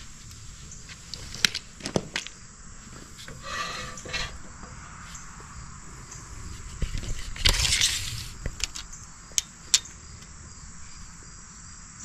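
Scattered light clicks and knocks, with a short rasping burst a little past halfway: handling noise from someone working close to the microphone.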